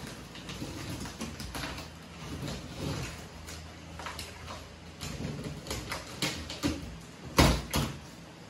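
Plastic stretch wrap and packing tape being cut and peeled off a cardboard shipping box: irregular crinkling, tearing and scraping of plastic and cardboard, with two louder sharp rips close together near the end as a flap is pulled open.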